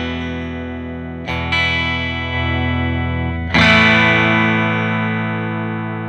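Electric guitar with an Alnico 5 big-pole-piece single-coil bridge pickup, played through an amplifier with its volume knob rolled down: strummed chords left to ring, two quick strums about a second in and a louder chord about three and a half seconds in.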